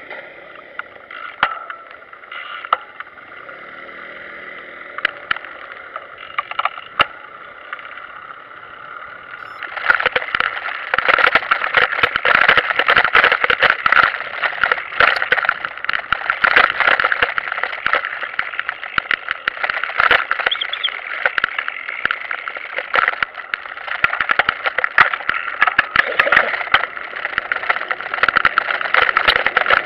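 After a quieter start with a few clicks, a loud, dense rattling and rumbling begins about ten seconds in as a pedal trike and its mounted camera roll over a stone-set street paved between tram rails.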